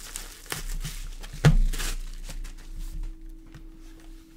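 Plastic bubble wrap crinkling and rustling as it is pulled off a stack of trading cards, with one loud rustle about a second and a half in. After that come lighter, sparser clicks as the cards are handled.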